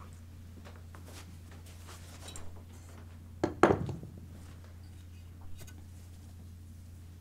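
Two sharp knocks of wooden pressing tools set down on a hard pressing board, about halfway through, with lighter taps of handling and collar fabric before and after. A steady low hum runs underneath.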